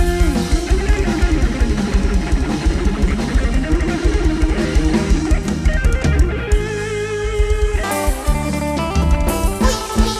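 Instrumental break in a Thai lam sing song: an electric guitar plays a gliding lead melody over a drum kit, with no singing.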